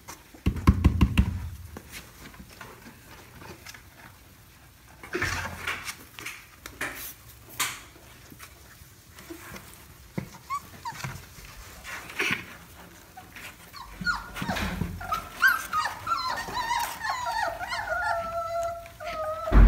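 Labrador puppies scratching and bumping against the sides of a cardboard box as they try to climb out. About two-thirds of the way in, puppies start whining in high, wavering cries that go on to the end.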